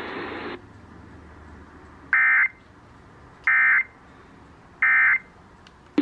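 Emergency Alert System end-of-message signal played through an FM radio: three short, identical bursts of digital data warble about a second and a half apart, marking the end of the relayed tornado warning. A short hiss cuts off within the first second.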